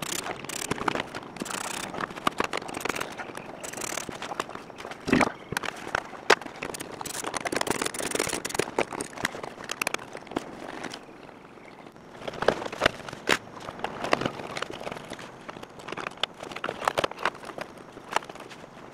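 Plastic dashboard trim being worked loose under a car's steering column: irregular clicks, knocks and rattles with rustling as the panels and clips are handled.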